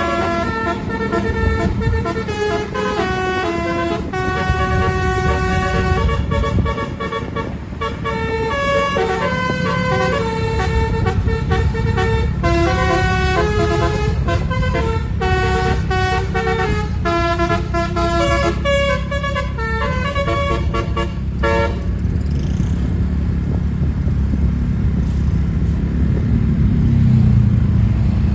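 A bus's telolet multi-tone horn playing a tune of short held notes for about twenty seconds, then cutting off suddenly. The uploader calls the tune nice but the horn trumpets' sound a bit strange. The bus engine's low rumble runs under it and swells near the end.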